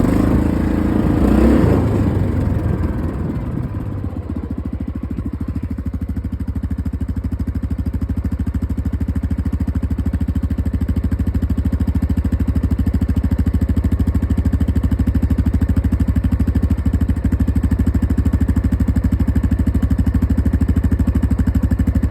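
ATV engine idling with a steady, even beat. It is louder and more uneven for the first three seconds or so.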